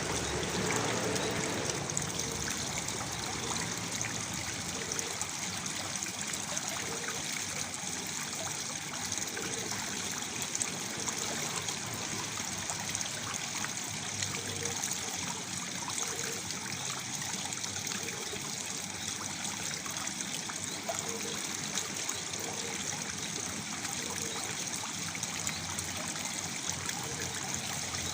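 Waterfall pouring steadily into a pool: an even rush of falling water with fine trickling and splashing that does not let up.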